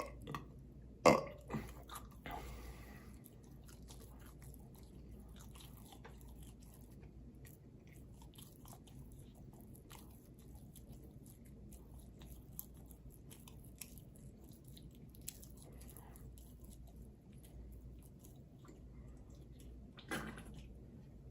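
A person burping: a loud short burp about a second in and another near the end. In between are faint scattered chewing clicks.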